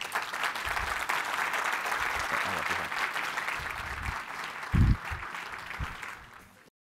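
Audience applauding, with a dull thump about five seconds in. The applause cuts off suddenly just before the end.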